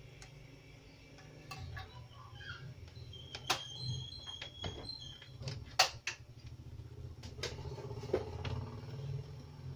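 Scattered sharp clicks and knocks from multimeter probes and leads being handled on a TV circuit board, the loudest a little before the middle, over a steady low hum.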